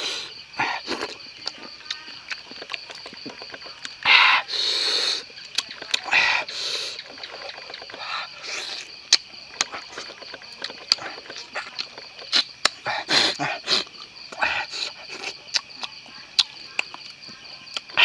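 Night insects calling steadily in two high, even tones, over close-up eating sounds: fingers picking at grilled fish, chewing and lip-smacking, with frequent small clicks and a few louder bursts.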